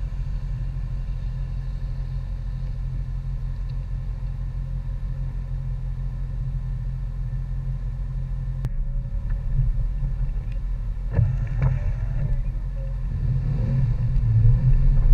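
Ram Power Wagon's HEMI V8 idling with a steady low rumble, with a sharp knock about eleven seconds in, then getting louder near the end as the truck pulls away.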